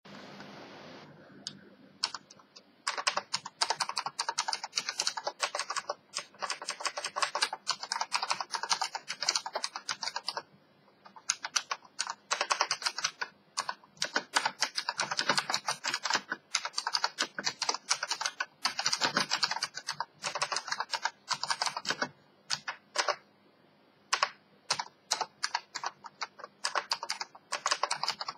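Typing on a keyboard with Omron key switches: fast runs of key clicks in bursts, with a few short pauses between them, starting about two to three seconds in.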